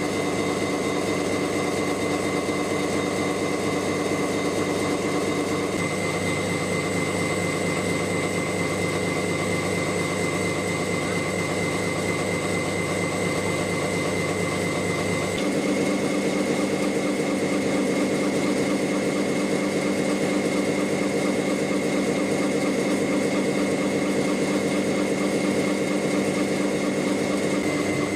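Gear hobbing machine running as it cuts gear teeth: a steady mechanical hum with several constant whining tones. The tone shifts about six seconds in and again, a little louder, about fifteen seconds in.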